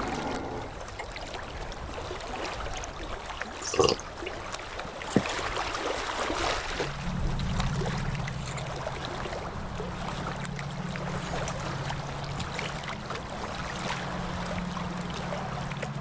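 Steady wash of ocean surf. A low steady hum comes in about seven seconds in, and two brief knocks sound about four and five seconds in.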